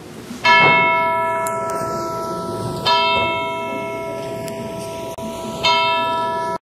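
A single bell struck three times on the same note, about two and a half seconds apart, each stroke ringing on and slowly fading. The sound cuts off abruptly just before the end.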